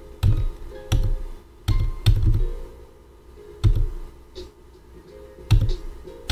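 Irregular sharp clicks with a dull thump, seven in all and unevenly spaced, from stepping through moves on a computer Go board.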